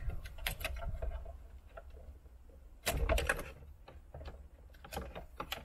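Plastic wiring connectors being unclipped and pulled from the back of a factory Toyota head unit: a series of sharp clicks and rattles, the loudest cluster about three seconds in.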